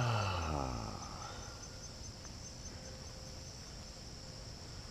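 Insects chirping steadily in a high, rapid pulse, about five a second. A brief sound with falling pitch comes right at the start, the loudest moment.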